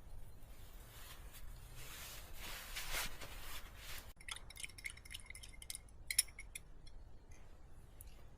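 A rustle, then after a sudden cut a run of light clinks of small hard objects, each with a brief ring, the loudest about six seconds in.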